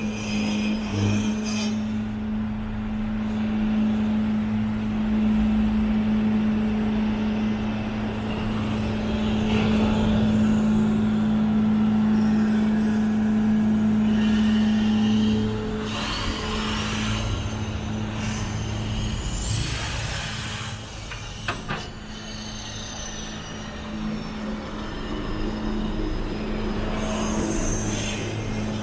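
Downtown street traffic: a steady low engine drone that eases about halfway through, with vehicles passing and a high whine that rises and then slowly falls over the second half.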